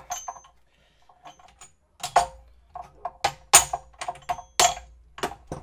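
Irregular metal clicks and knocks, some with a short ring, as a ball screw and its bearing are worked out of a close-fitting bore in an aluminium frame. The strikes are louder and come more often in the second half.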